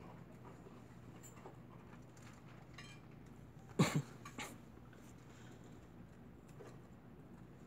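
A low steady hum with a quick cluster of two or three sharp knocks about four seconds in.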